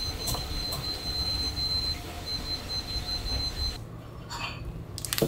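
A thin, steady high-pitched whine over low kitchen background noise, broken once for a moment and cutting off after about four seconds. Then a brief soft rustle of paper signs being handled, and a few light clicks near the end.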